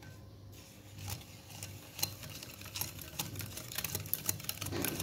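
Stainless steel wire whisk stirring flour into a wet batter in a glass bowl, its wires clicking and tapping against the glass. The taps grow faster and more frequent toward the end.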